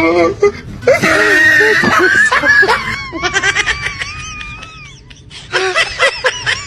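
A person laughing in bursts, with a thin, high, wavering squeal midway through.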